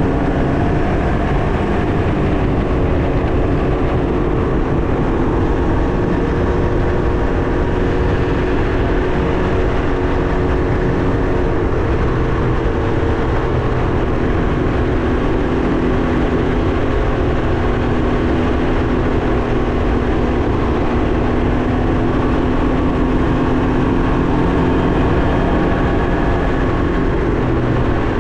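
Can-Am Ryker 900 three-wheeler's three-cylinder engine running at a steady cruising speed, its pitch nearly constant, under heavy wind and road rush.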